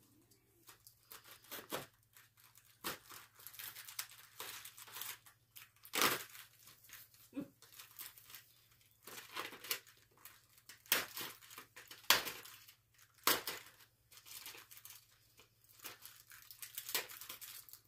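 Cardboard and plastic packaging of a pet advent calendar being torn and crinkled by hand, in irregular bursts of tearing and rustling. A faint steady low hum runs underneath.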